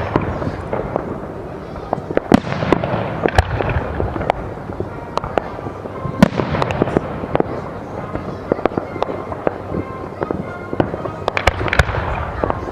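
Aerial fireworks going off: many sharp bangs at irregular intervals over a dense crackle of bursting shells.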